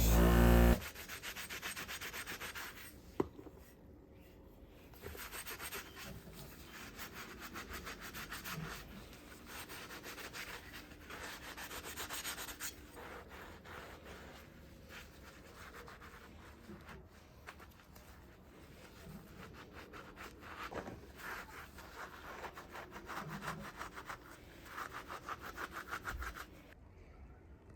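Hand sanding: sandpaper rubbed quickly back and forth over a part of an old drill being restored, in bouts of strokes with brief pauses. A single sharp click about three seconds in.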